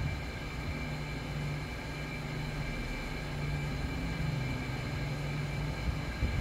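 Hot-air rework gun blowing steadily on a metal heat sink, a continuous airy rush with a low hum that wavers in pitch.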